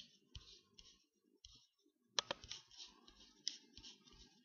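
Faint clicking of a computer mouse with soft handling noise, and a couple of sharper clicks about two seconds in.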